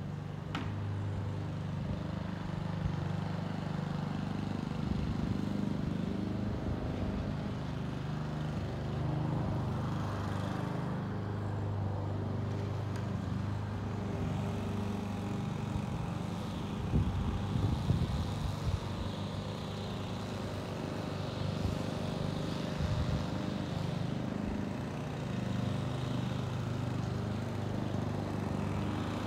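Box truck's engine idling steadily, with a cluster of sharp knocks a little past halfway.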